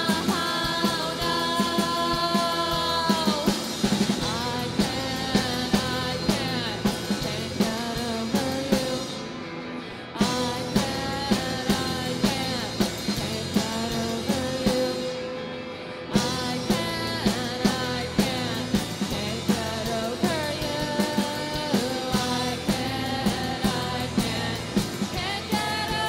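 Background music: a rock song with a sung vocal over a steady drum beat and guitar.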